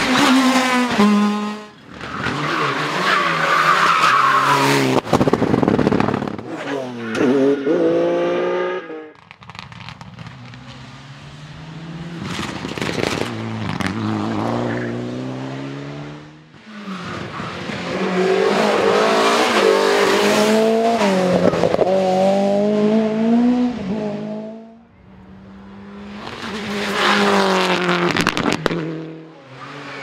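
Rally cars passing one after another at speed, engines revving high and dropping away between gear changes. The passes are split by short dips.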